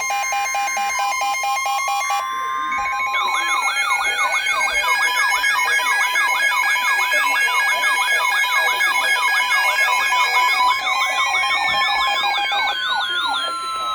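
A dense layering of electronic alarm tones. Rapid pulsing beeps and steady held tones give way, about two to three seconds in, to fast warbling wails at several pitches, about four wobbles a second, while slow pitch glides rise and fall underneath. The warbling drops out shortly before the end.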